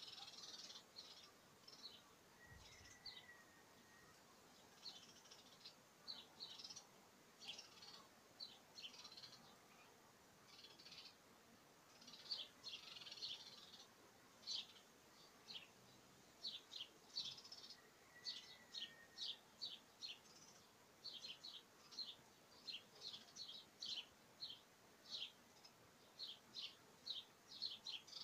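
Songbirds chirping: quick series of short high chirps that grow busier in the second half, with a short lower whistle twice.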